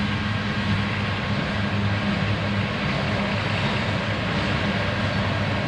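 BNSF coal train's hopper cars rolling steadily past a grade crossing: a continuous rumble of steel wheels on the rails.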